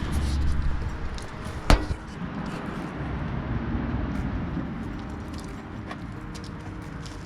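Steel parts of a flat-top griddle being handled during assembly: low rumbling handling noise, one sharp knock about two seconds in, then scattered light clicks.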